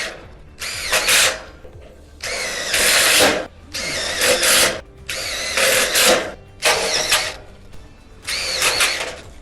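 Power drill driving screws into a steel shed frame: six short bursts of about a second each, each with a whining motor pitch, with short pauses between screws.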